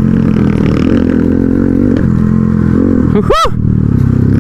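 Motorcycle engine running on a dirt trail ride, its pitch wavering with the throttle. About three seconds in, a brief high squeal rises and falls.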